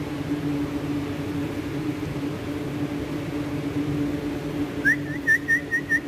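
A steady low electric hum runs throughout. About five seconds in comes a short rising whistle, then a quick run of about five high chirping whistled notes.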